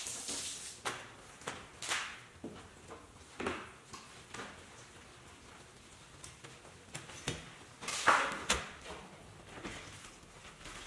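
Soapy microfiber wash pad wiping and scrubbing across a truck's wet windshield and painted hood: irregular wet swishes and rubs, the loudest about eight seconds in.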